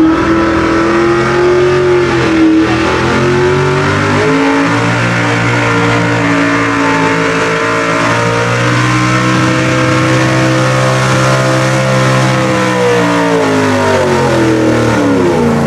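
Modified gas pulling truck's engine running hard at high revs under full load as it drags a weight-transfer sled. The note wavers and climbs slowly through the pull, then its pitch falls away near the end as the run finishes.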